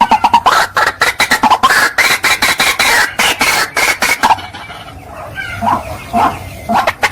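White-breasted waterhen calling: a fast run of harsh, repeated notes, about six a second. About four seconds in it falls back to softer, scattered calls, then the dense calling picks up again near the end.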